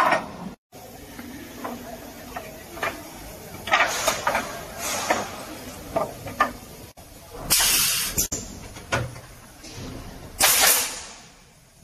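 Pneumatic air of an automatic pallet nailing machine: three bursts of hissing exhaust a few seconds apart, between scattered knocks of wooden boards being set into the jig.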